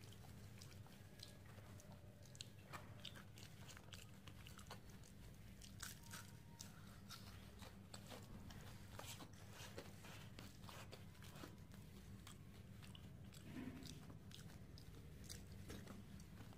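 Faint close-up chewing of rice and fried potato (aloo bhaja) eaten by hand, with many irregular small crunches and mouth clicks over a steady low hum.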